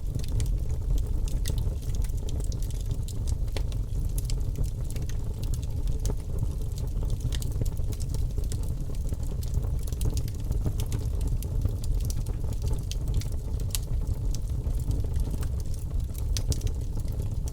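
Bonfire burning: a steady low rush of the flames with frequent sharp crackles and pops of the burning wood, scattered irregularly throughout.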